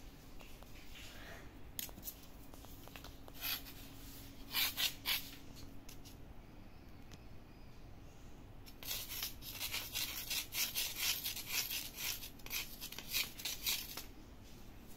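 A kitten scrabbling at a cloth toy on a string, its claws and the toy scraping on a painted concrete floor: a few short scrapes about three to five seconds in, then a dense run of rapid scratching from about nine seconds until near the end.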